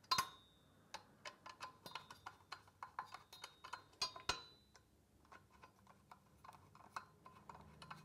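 Hand screwdriver turning screws into the metal support leg of a rowing machine: a run of small, irregular clicks and ticks several times a second, with sharper metallic clicks right at the start and about four seconds in, thinning out toward the end.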